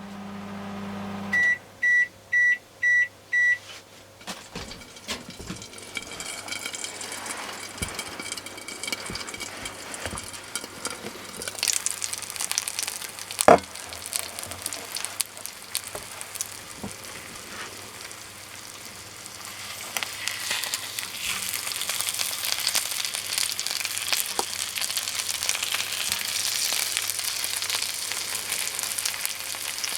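A microwave oven's running hum stops and it beeps five times, signalling the end of the cooking cycle. Then salted mackerel sizzles and crackles in a hot microwave grilling pan. There is one sharp clack about halfway through, and the sizzling grows louder in the second half.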